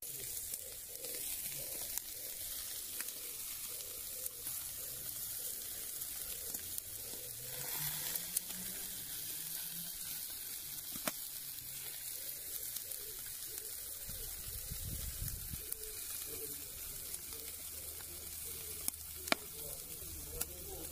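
Meat sizzling on a charcoal grill grate: a steady hiss with a few sharp crackling pops.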